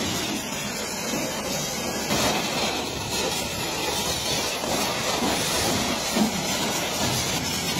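High-pressure washer spray hissing steadily as the water jet hits the truck's cab front.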